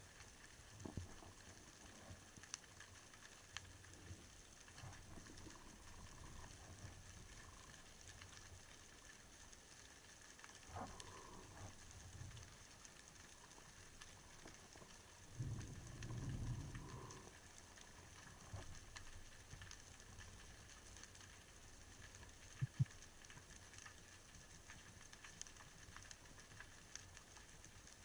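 Faint underwater ambience, near silence overall: scattered crackling ticks, a couple of brief low rumbles, and one sharp click about three-quarters of the way through.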